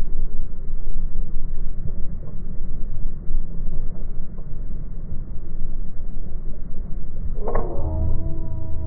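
Loud, steady low rumble aboard a small fishing boat on open water. About seven and a half seconds in, a sharp click is followed by a short call of several held tones that lasts about a second and a half.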